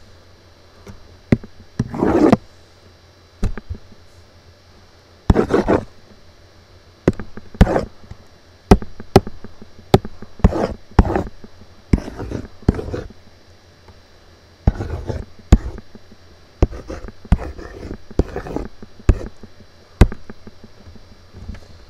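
Computer mouse clicking irregularly, with short scraping sounds of the mouse sliding across a desk while drawing in Paint.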